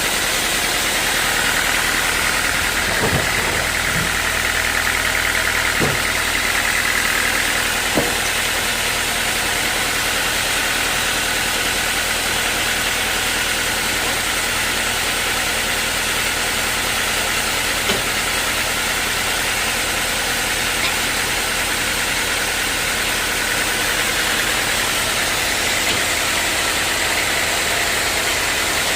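Sawmill machinery running steadily, with a few short sharp knocks in the first third and one more later on.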